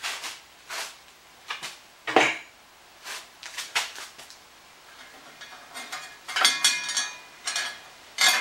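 Light metallic clinks, knocks and rattles as the steel blade and metal fittings of a wood bandsaw are handled during blade removal. There is one louder knock about two seconds in, and denser clinking with brief metallic ringing in the second half.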